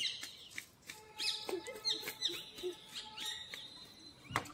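Birds chirping and calling: many short high chirps and falling notes, one note held for a second or so in the middle. A single sharp knock sounds near the end.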